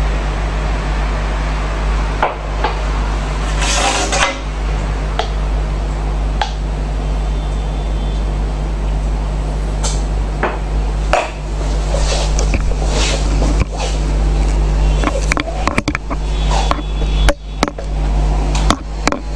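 Ceramic cups and a stainless steel milk pitcher clinking and knocking on a countertop, a few scattered strikes, with a short hiss about four seconds in, over a steady low hum.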